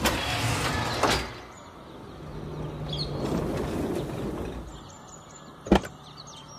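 A heavy iron gate being dragged open, with a grating scrape that ends in a clank about a second in. Then a vehicle engine runs low as it rolls in, birds chirp, and there is a sharp knock near the end.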